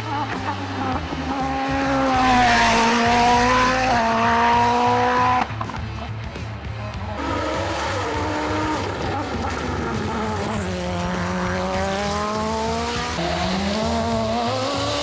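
Open-cockpit sport-prototype race cars at full throttle on a hillclimb course, their engines revving high, the pitch climbing through each gear and dropping again into the bends. About five seconds in, the sound drops suddenly to a quieter engine note that builds again.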